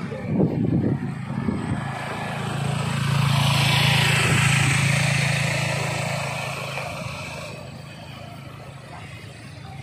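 A motorcycle passing by on the road, its engine growing louder to a peak about four seconds in and then fading away.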